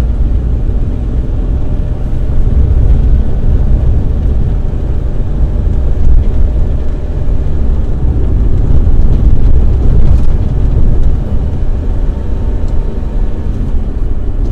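Cabin noise of a 2006 Maruti Alto 800 on the move: a steady, loud low rumble of engine, tyres and wind.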